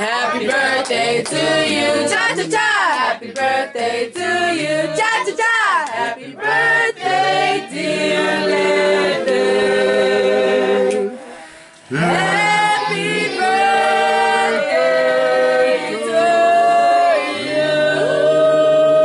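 A group of voices singing a cappella in harmony, with long held notes and vibrato. There is a brief pause between phrases about eleven seconds in.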